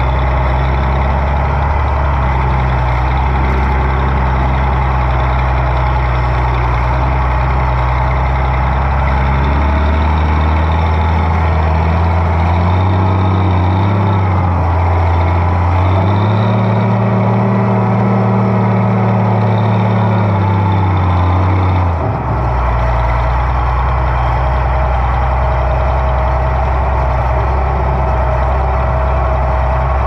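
Oliver 1650 tractor's six-cylinder diesel engine running under load through mud. Its pitch rises about a third of the way in, climbs higher still, then drops back suddenly to the earlier steady note about three-quarters of the way through.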